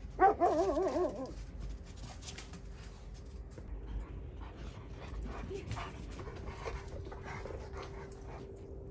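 A dog whining in a wavering, quavering tone for about a second at the start, then faint scattered small sounds over a faint steady hum.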